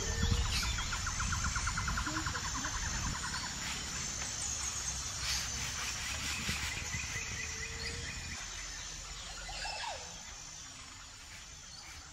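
Outdoor nature ambience: a steady high insect buzz, with a rapid trill in the first few seconds and a few short bird calls, over a low rumble that dies away about eight seconds in. It all fades gradually toward the end.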